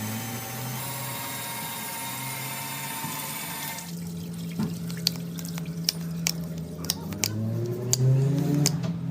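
Water rushing under pressure from a live pipe, a steady hiss that cuts off suddenly about four seconds in. Then a low steady hum with scattered sharp clicks and knocks, and a few rising tones near the end.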